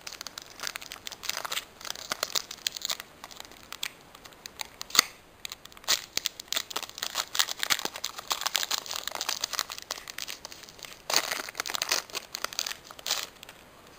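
Foil wrapper of a Pokémon EX Sandstorm booster pack crinkling as it is handled and torn open, with the densest crinkling and tearing about eleven seconds in.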